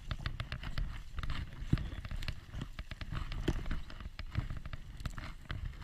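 Footsteps crunching through dry grass and brush, with clothing rustling, heard close up from a body-worn camera.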